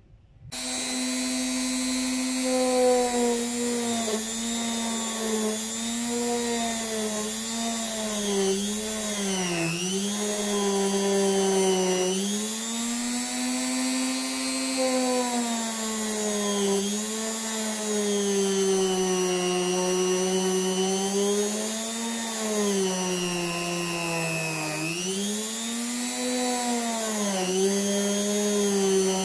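Small handheld rotary tool spinning a brass wire brush against a bare die-cast metal toy-car body, its motor whining steadily. The pitch sags and recovers several times as the part is pressed against the brush.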